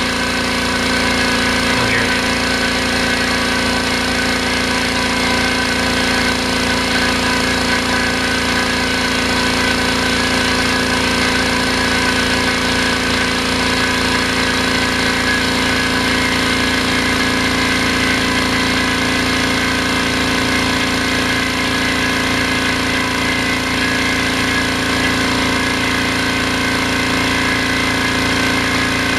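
GMC / California Air Tools Syclone 6310 ultra-quiet oil-free air compressor running steadily, pumping up its tank: a constant motor and pump hum with a few steady tones.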